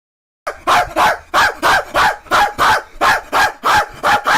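A dog barking rapidly and steadily, about three barks a second, starting suddenly about half a second in after silence.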